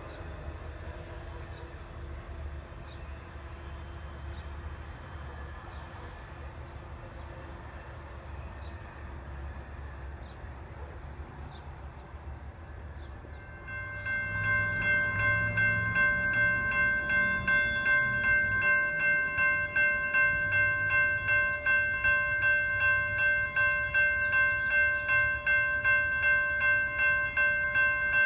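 Low, steady rumble of a distant train approaching. About halfway through, railroad grade-crossing warning bells take over, a loud ringing that pulses about twice a second.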